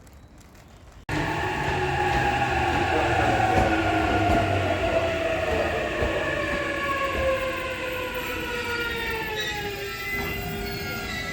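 Electric train slowing down, its motor whine falling steadily in pitch over a rumbling ride noise as it brakes. It comes in suddenly about a second in.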